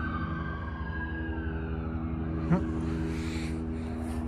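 A steady engine hum with a fine, even low pulse, like a motor idling. Over it a siren wails, its pitch slowly falling as it fades during the first two seconds.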